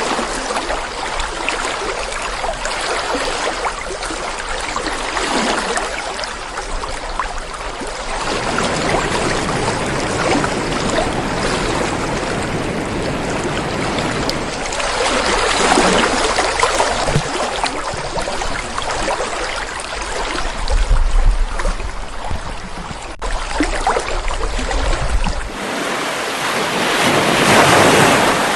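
Rushing water with surges that swell and fall away like waves breaking on a shore, three times in the second half. The character of the water changes abruptly twice, and a low wind rumble on the microphone comes and goes.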